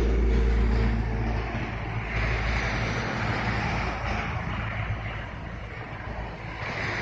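Pakistan Railways diesel locomotive heard at a distance: a low steady engine drone that fades out about a second and a half in, giving way to a steady rushing noise.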